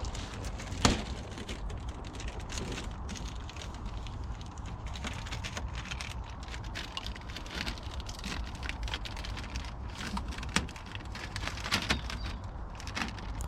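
Irregular sharp clicks and crackles over a steady low noise.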